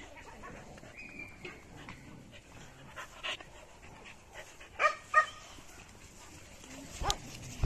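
Puppies playing: panting, with a few short, high yips, two of them close together about five seconds in.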